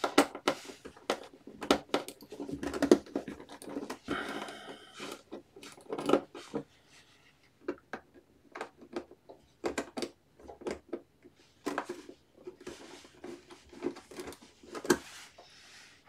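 Hand screwdriver driving screws into the plastic back cover of an all-in-one PC, with irregular clicks, ticks and short scratching rasps as the screwdriver and case are handled. There is a longer rasping stretch about four to five seconds in.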